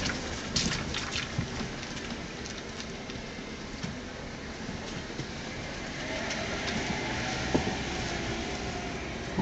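A car driving slowly on a wet road, heard from inside the cabin: steady engine and tyre noise with a few light clicks.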